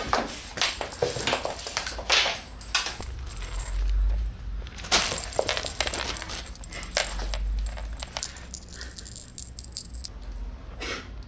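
Fabric cat tunnel rustling in irregular bursts as it is handled and a cat plays inside it, with small clicks and clinks among the rustles.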